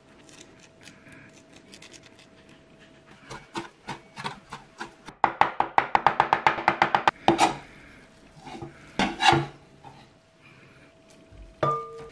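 Kitchen knife chopping on a wooden cutting board: a few scattered cuts, then a fast, loud run of about a dozen strokes a second around the middle, and a few more cuts after.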